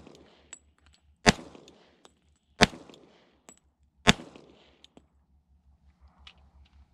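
Springfield 1911 pistol in .45 ACP firing three single shots about a second and a half apart, each a sharp crack with a short decay. Light clinks fall between the shots.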